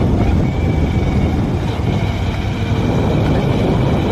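Wind buffeting the phone's microphone over the engine and road noise of a moving motorbike, a steady low rumble.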